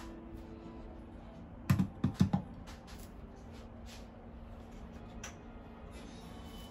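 Ceramic mug being hung upside down on an adhesive wall hook: a quick run of about four sharp clacks around two seconds in.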